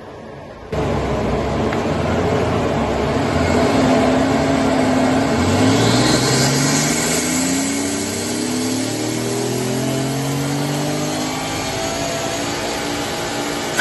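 Nissan Stagea's Skyline RB-series straight-six engine accelerating. It comes in abruptly just under a second in, and its pitch climbs steadily for several seconds before levelling off.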